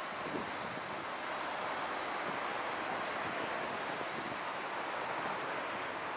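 Steady city-street noise: a continuous hiss of passing road traffic.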